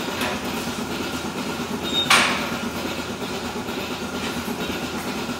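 Goat milking-parlour machinery running with a steady hum, and one sharp burst about two seconds in, just after a brief high squeak, from the entry door mechanism cycling as a goat is let in.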